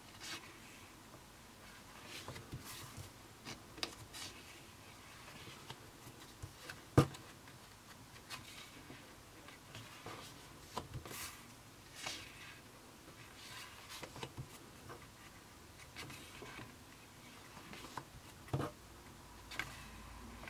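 Pages of a Leuchtturm1917 sketchbook with heavy 180 g/m² paper being turned and handled: a run of soft paper swishes and rustles, with a sharp tap about seven seconds in, the loudest sound, and another near the end.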